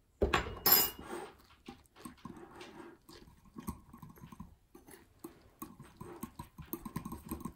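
Wire whisk beating a thick cream-cheese icing in a glass bowl: a quick, uneven run of metal-on-glass ticks and scrapes, after a clatter of knocks in the first second.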